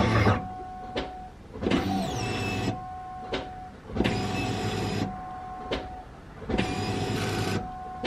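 Twin in-tank electric fuel pumps of a 2003–04 Mustang SVT Cobra priming at key-on, starting and stopping in about four separate runs of roughly a second each. The pitch of the pumps changes from one key-on to the next, which tells that the reconnected feed line now holds and the pumps are making fuel pressure.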